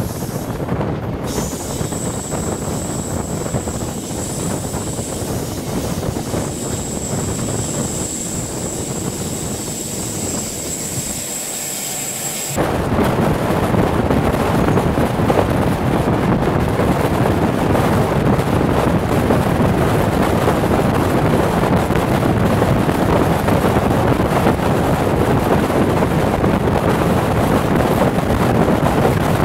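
Loco-hauled sleeper train in motion: steady rushing and rumbling running noise with a thin high whine over it at first. About twelve seconds in, the whine is gone and the noise turns abruptly louder and fuller, a rushing like wind buffeting the microphone.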